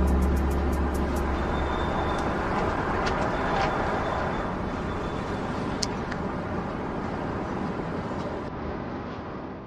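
Steady outdoor background noise like street traffic, with a low rumble for the first two seconds and a few faint clicks.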